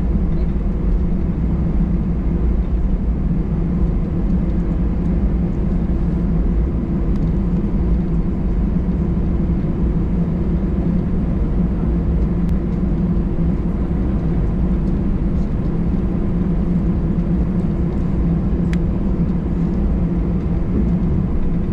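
Steady low cabin rumble inside an Airbus A319 on the ground after landing: engine and air-conditioning noise while the aircraft taxis in.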